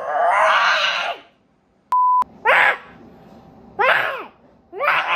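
A young girl shrieking into a phone, being recorded for a Halloween decoration's scream sound. There is one shriek, then a short steady beep about two seconds in, then three more short shrieks that each fall in pitch.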